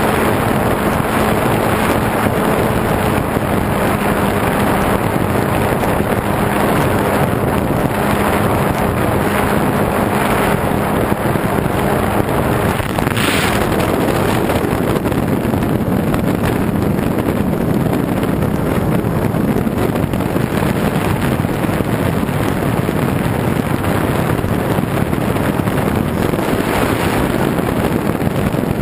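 Steady wind rush over a bare onboard GoPro on a flying FPV model airplane, with the plane's motor and propeller running underneath. A faint steady hum fades out about twelve seconds in, and there is a brief swell of noise just after.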